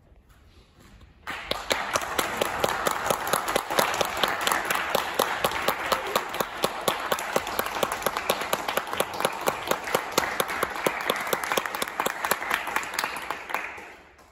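Audience applauding, starting about a second in and dying away near the end, greeting the performer as he walks on stage.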